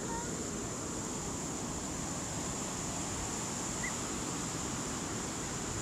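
Steady rush of ocean surf breaking on a beach, with a few faint, short high calls in the distance.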